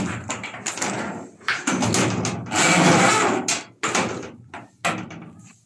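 Irregular knocks, clicks and scraping from hands-on work among metal studs and plywood, with a longer, louder scrape about two and a half seconds in.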